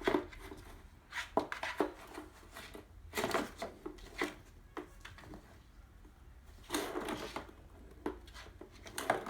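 Ping-pong balls knocking and rolling inside a cardboard box, with scraping and rubbing on the cardboard, in irregular clusters of sharp knocks a second or two apart.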